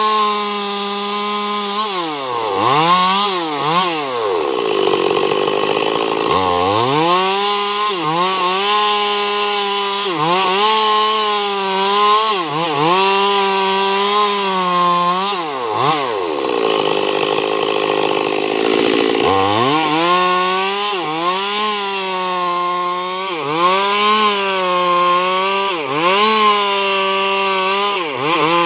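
Chainsaw engine cutting wood, revved high in short stretches with quick dips in pitch between them. It drops toward idle twice for a few seconds, about five seconds in and again around seventeen seconds.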